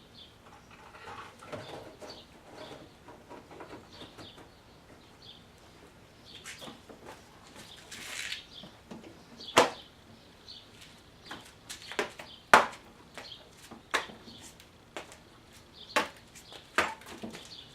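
Scattered clicks and knocks of objects being handled, with a few sharp knocks in the second half.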